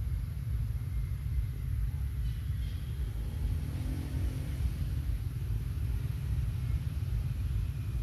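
Steady low outdoor rumble, with a faint hum that swells and fades about midway.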